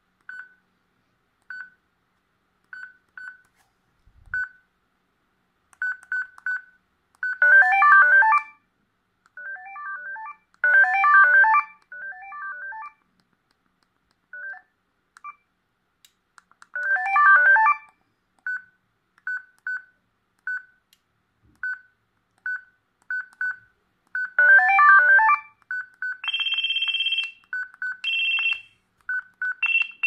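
Toshiba TS808 clamshell phone's Yamaha sound chip playing through its small speaker. Short single key beeps sound as menu buttons are pressed, broken up four times by brief ringtone melody snippets. Near the end come quicker, higher-pitched beeps.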